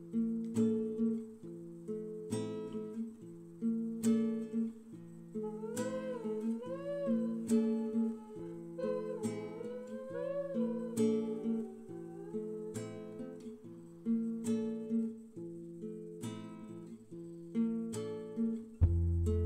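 Background music: acoustic guitar playing chords in a steady rhythm. A wavering melody line comes in twice in the middle.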